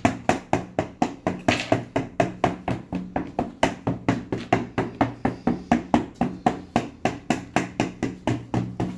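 Rapid, even knocking on a hard kitchen surface, about five strokes a second, over a steady low hum.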